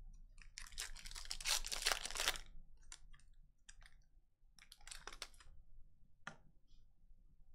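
Foil Donruss Optic basketball card pack being torn open and crinkled by hand, then cards being handled. There is a long stretch of dense crinkling in the first couple of seconds, then scattered short crackles and clicks.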